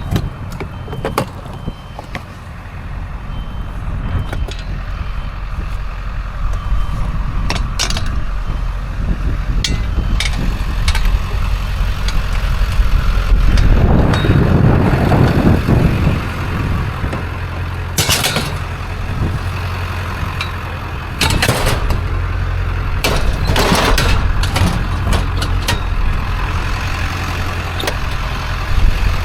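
A vehicle engine running steadily with a low hum. It grows louder for a couple of seconds midway, and a few sharp knocks and clanks come through, mostly in the second half.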